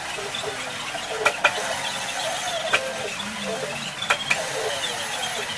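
Metal lathe running slowly while cutting an internal Acme thread, with a steady scraping hiss, faint wavering squeals of the tool on the metal, and a sharp double click repeating about every one and a half seconds.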